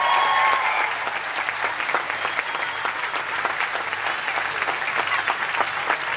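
Audience applauding: a dense, steady patter of many hands clapping, with a few louder claps close by. The last held notes of music fade out in the first second.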